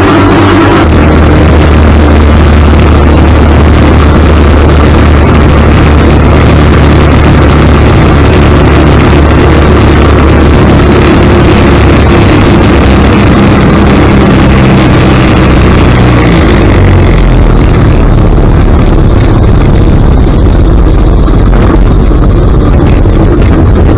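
Ultralight trike engine and propeller running steadily, loud, with wind rushing over the wing-mounted microphone. About 17 seconds in the engine note changes and the high hiss drops away as the trike comes down low over grass for landing.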